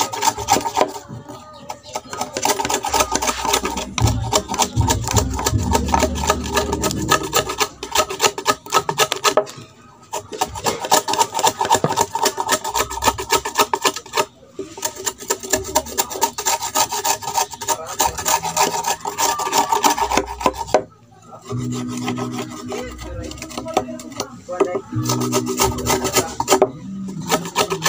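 A hand tool scraping back and forth on wood in rapid strokes as the top of a homemade wooden stool is smoothed, stopping briefly a few times.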